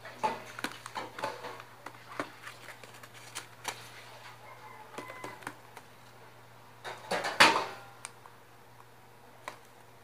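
Young parakeets pecking at crumbled food on newspaper: irregular sharp beak taps and scratchy clicks on the paper, with a louder rustle of newspaper about seven seconds in.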